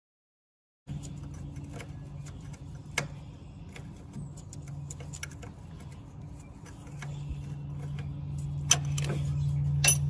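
Sharp metal clicks and clinks of a wrench and fittings being worked at a fuel pump, over a steady low hum that begins about a second in and grows louder about seven seconds in.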